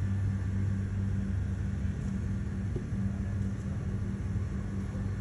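A steady low hum of running machinery, even and unbroken.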